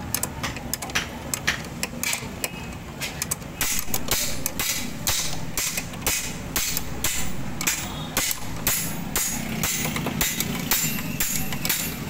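Steel 12 mm ring spanner clinking and clicking against a scooter's front brake caliper mounting bolt as the bolt is tightened and the spanner is refitted stroke after stroke. The sharp metallic clicks come thick and fast, settling into roughly two a second after a few seconds.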